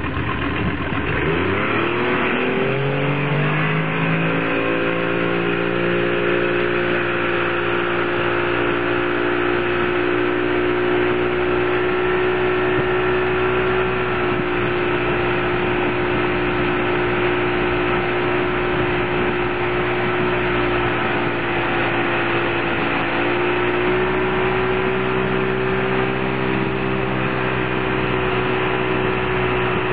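Tow boat's engine throttling up from idle to pull a wakeboarder out of the water: its pitch rises over the first few seconds, then it runs steadily at towing speed. A steady rush of wind and water runs under it.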